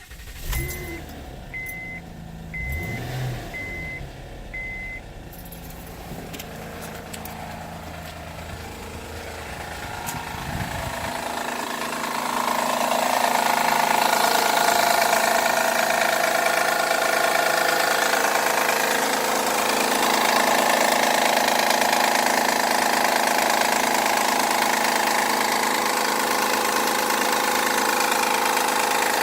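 2011 Honda Accord engine running cold with a loud noise that sounds like it's out of oil though it isn't. The noise lasts 5 or 10 minutes until the engine is warm. A short beep sounds about six times, evenly spaced, in the first five seconds. The engine noise grows much louder between about ten and fourteen seconds in and then stays steady.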